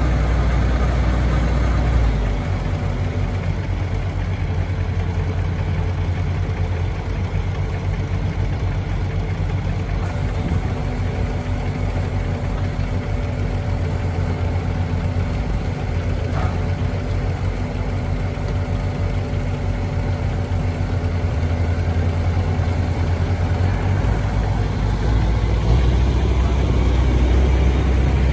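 Kubota DC-105X combine harvester's diesel engine running steadily with a low, fast-pulsing throb that shifts in pitch about two seconds in and again near the end.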